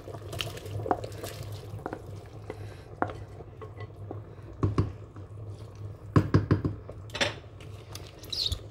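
A glass bowl knocking and clinking against the rim of a steel cooking pot several times as soaked basmati rice is tipped and scraped into boiling stock, over a low steady hum. The loudest knocks come just before the middle and in a quick cluster about two-thirds of the way through.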